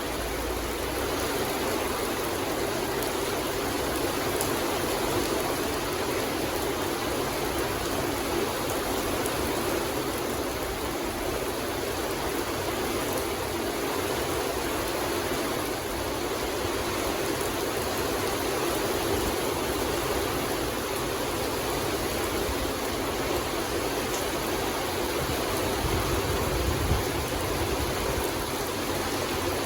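Steady rain falling in a forest: an even, unbroken hiss with no changes in strength.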